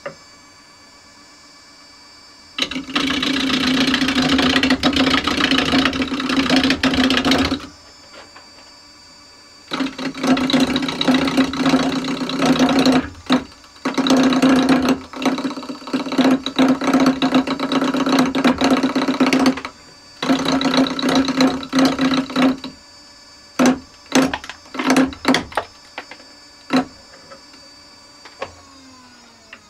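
Wood lathe running with a square sapele blank, a turning tool roughing off the corners. There are long stretches of loud, rough cutting with the motor's steady hum between them, then a run of short separate cuts. The motor hum stops near the end.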